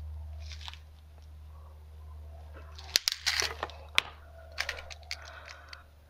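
18-inch bolt cutters biting through the hardened steel shackle of a Master combination padlock: sharp cracks and a crunch about three seconds in, another sharp snap a second later, then a scatter of smaller metal clicks and rattles, over a steady low hum.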